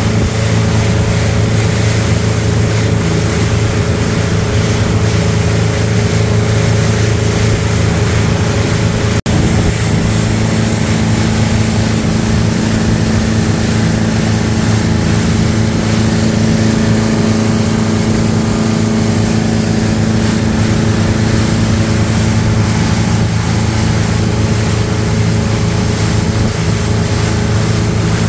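Motorboat engine running steadily at cruising speed, with water rushing past the hull. The sound briefly cuts out about nine seconds in.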